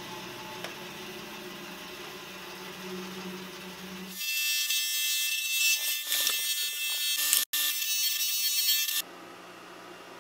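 Bandsaw running with a steady hum. About four seconds in it gives way to a louder, hissing benchtop disc sander grinding a maple guitar-neck blank, with a brief cut-out in the middle. Near the end the sanding stops and a quieter machine hum remains.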